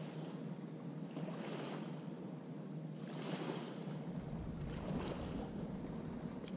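Small waves lapping on a sandy shore, a soft wash about every couple of seconds, with wind rumbling on the microphone from a little past halfway.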